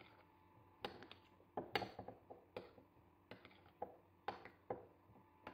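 Metal spoon stirring roasted peanuts into thick caramel in a ceramic bowl: a string of irregular faint clicks and taps as the spoon knocks the bowl and the nuts.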